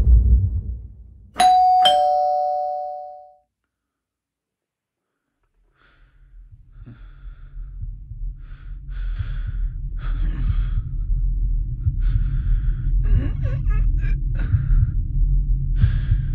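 Two-tone ding-dong doorbell chime about a second in, a higher note then a lower one, ringing out over about two seconds into dead silence. From about six seconds a low rumbling drone swells, with faint scattered noises over it.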